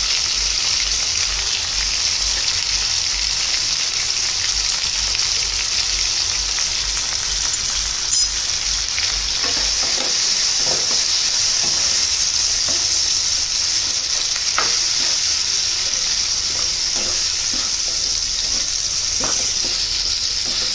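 Chopped vegetables and ground spices sizzling in hot oil in a nonstick wok as a tempering for sambar, a steady hiss. From about halfway through, a plastic spoon scrapes and stirs through the pan in short strokes.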